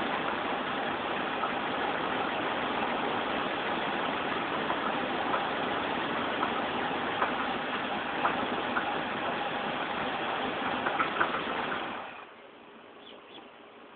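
Chevrolet Monte Carlo engine idling with a bad knock, heard as scattered sharp knocks over the running engine; the owner suspects a bent pushrod. The engine sound cuts off abruptly about twelve seconds in.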